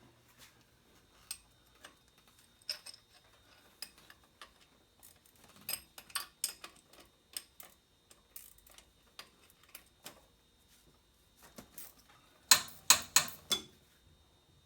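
Metal hand tools and parts clicking and clinking during engine disassembly: scattered light clicks, then a quick run of about five loud metallic clinks near the end.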